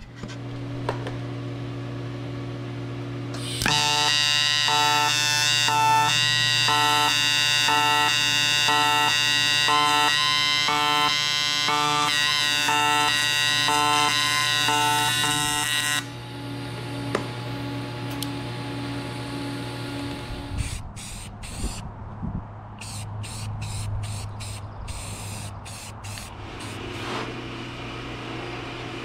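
Arc welding of an aluminium plate and tube, with an AC TIG arc giving a loud, harsh buzz that pulses regularly. The buzz starts about three and a half seconds in and cuts off about sixteen seconds in. Under it a steady low electrical hum continues throughout, and a few sharp clicks come near the end.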